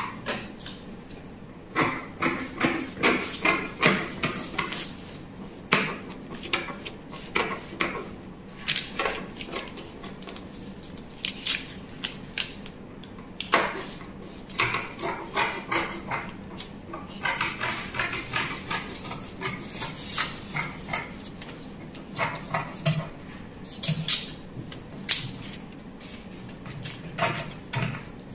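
Scissors cutting through fabric: a long series of sharp snips, coming in runs of several quick cuts with short pauses between them.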